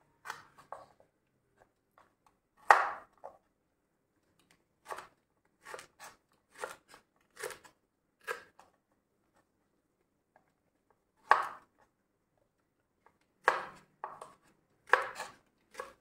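Kitchen knife slicing okra pods on a wooden cutting board: about a dozen single cuts, each a short sharp knock of the blade on the board, unevenly spaced with a longer pause around the middle.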